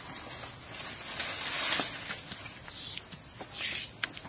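A steady high-pitched insect drone, with soft scraping as hands gather ground chilli paste off a stone grinding slab and a few small clicks.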